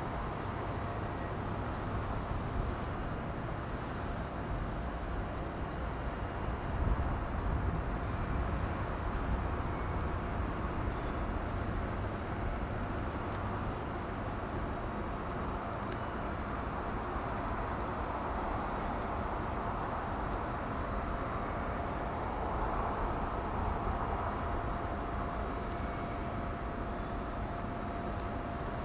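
Steady harbour and shipyard ambience: a low rumble under an even hiss, with a constant mid-pitched hum from distant machinery and no distinct events.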